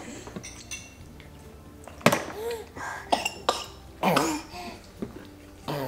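Babies making short vocal sounds in about four bursts, the first starting with a sharp knock about two seconds in as a sippy cup is dropped. Soft background music plays underneath.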